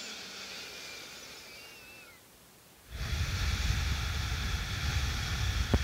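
A person breathing slowly through the nose: a breath fading out over the first two seconds, then a louder breath starting abruptly about three seconds in and rushing steadily on.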